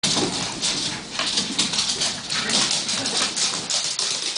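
Plastic crisp packet crinkling and rustling continuously as miniature schnauzer puppies pull at it.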